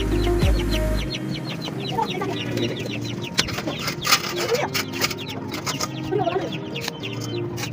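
Chickens clucking in their coops over a fast, high chirping, with a couple of sharp knocks about three and a half and four seconds in as concrete blocks are set down.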